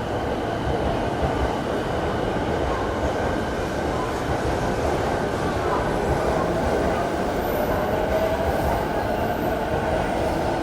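Electric train running on the elevated station tracks, a steady rumble with a faint motor whine that rises slowly in pitch in the second half, under low wind buffeting on the microphone.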